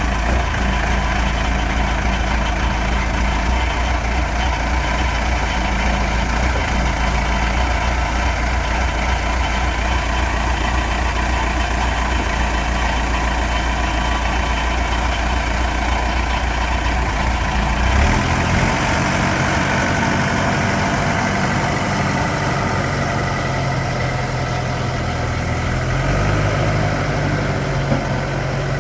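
Cummins diesel engine of a 1990 Case 450C tractor running steadily. The note changes abruptly about 18 seconds in and steps up in pitch again near the end.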